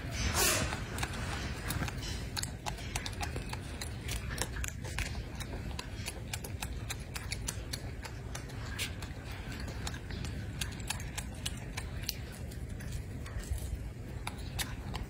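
Golden snub-nosed monkey chewing fruit: many small, irregular clicks and smacks, several a second, over a steady low rumble.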